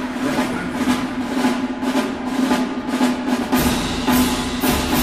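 Orchestral music with a drum roll and a run of sharp percussive strokes over a held note. Deeper bass notes join about three and a half seconds in.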